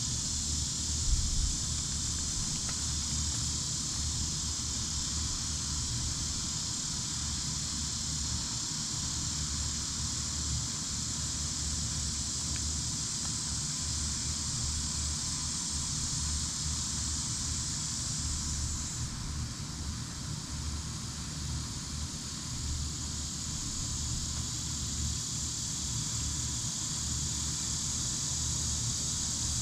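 Steady high-pitched insect chorus that eases slightly about two-thirds of the way through, over a constant low rumble.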